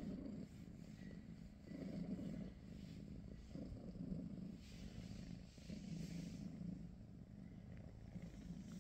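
Golden British Shorthair cat purring while being stroked, a low steady rumble that swells and eases about every two seconds as the cat breathes in and out.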